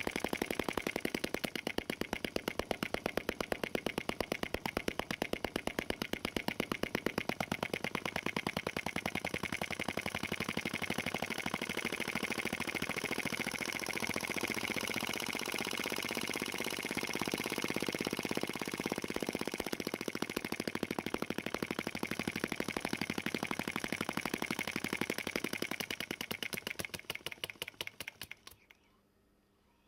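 Home-built Poppin vacuum (flame-licker) engine running fast, giving a rapid, even train of pops and valve clicks as the flame is sucked into the cylinder. Near the end the pops slow, fade and stop as the engine runs down.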